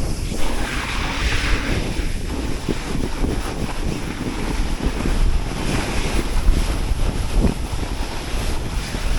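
Snowboard run on a piste: wind buffeting the microphone over the board's steady scrape and rumble on the snow. The hiss swells up briefly about a second in and again around six seconds, as on a turn.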